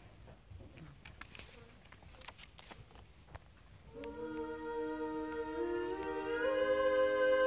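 Near-quiet stretch with a few faint clicks and rustles, then about four seconds in several young female voices begin humming a cappella in close harmony, holding chords that shift slowly to new notes and grow louder.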